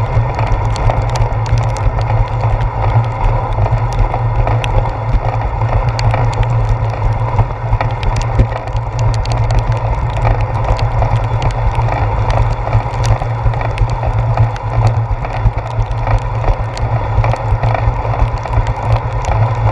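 Bicycle riding over wet pavement, heard through a handlebar-mounted action camera: a steady, loud low rumble of road vibration and wind, with frequent light ticks and clicks.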